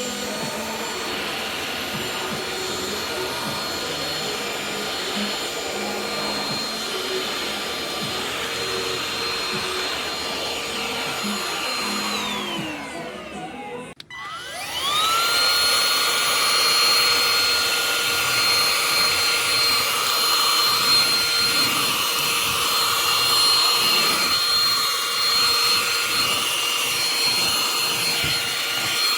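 Cordless handheld vacuum cleaner running with a steady motor whine. It winds down and stops about halfway through, then is switched on again, winding up and running louder.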